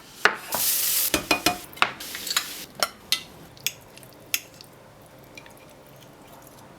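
Kitchen utensils tapping and clinking against cookware, with a short hiss near the start. The taps thin out about four seconds in, leaving a faint steady background.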